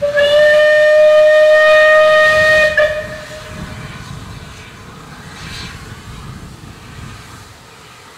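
Steam locomotive whistle from Bulleid rebuilt West Country Pacific 34027 'Taw Valley' (running as 21C127), blown in one loud, steady blast of about three seconds with a brief extra toot as it cuts off. After it the sound drops to a much quieter background.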